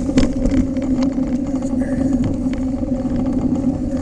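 Bicycle being ridden along a dirt trail: a steady hum with scattered clicks and knocks.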